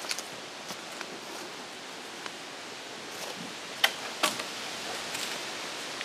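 Footsteps swishing through grass on a forest dirt track over a steady outdoor hiss, with a few light clicks and two sharper ticks about four seconds in.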